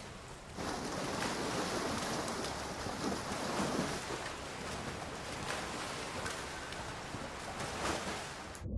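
Steady rushing and splashing of water as people wade neck-deep through a flooded cave. It starts about half a second in and cuts off abruptly near the end.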